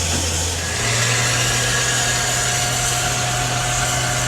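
Engine running steadily, its speed stepping up to a higher steady pitch about a second in.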